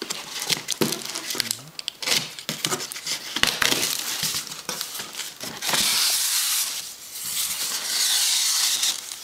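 Cardboard box being opened and its flaps and packing handled: a run of clicks, creaks and crinkles, then two longer rustling scrapes in the second half.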